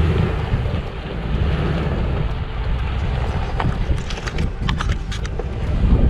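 Wind buffeting the microphone over the low rumble of an SUV crawling over rocks, with a run of small sharp cracks and clicks from stones under the tyres from about three and a half seconds in.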